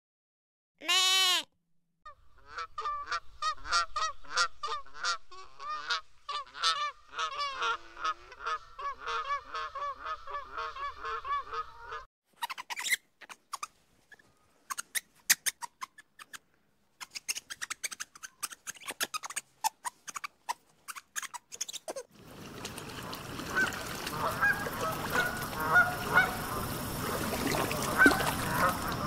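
A goat bleats once, loud and wavering, about a second in. Then comes a run of rapid repeated animal calls, then a stretch of sharp clicks and chirps that fit ring-tailed lemurs, and near the end an outdoor pond ambience with scattered bird calls.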